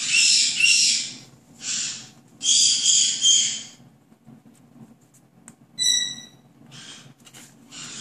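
White-bellied caique making harsh, raspy calls in three bursts over the first four seconds, then one short clear whistle about six seconds in.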